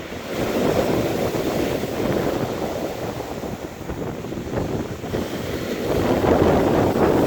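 Stormy sea surf breaking and washing on the shore, with wind buffeting the microphone. The rush of water swells about a second in and again near the end.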